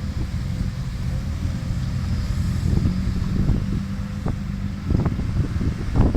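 Tracked excavator's diesel engine running steadily, with a few short knocks in the second half, at about four, five and six seconds in. Some wind noise on the microphone.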